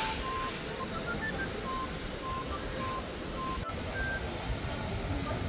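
Background music: a light melody of short, clean notes at changing pitches, over a steady wash of surf and wind noise. The sound drops out for an instant about three and a half seconds in.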